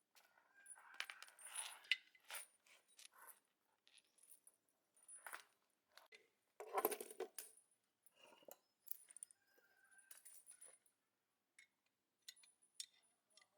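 Small metal parts and hand tools clinking and knocking against each other, an irregular series of light metallic taps, some with a brief high ring.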